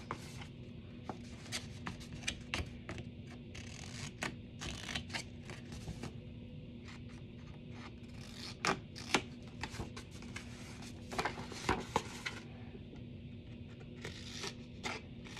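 Scissors snipping designer paper while the paper is handled and turned over: scattered short snips and rustles, with a few louder ones around nine and twelve seconds in, over a faint steady low hum.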